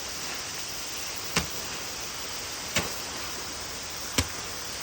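Steady hiss of water spraying from a hose onto dry pre-mixed concrete, with a sharp knock about every second and a half.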